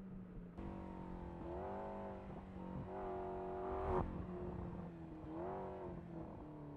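McLaren MP4-12C GT3 race car's twin-turbo V8 running hard, cutting in abruptly about half a second in. Its pitch rises and drops back several times as it accelerates and changes gear, with a short sharp crack about four seconds in.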